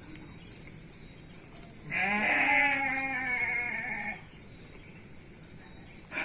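A farm animal bleats once: one long, wavering call of about two seconds that starts about two seconds in.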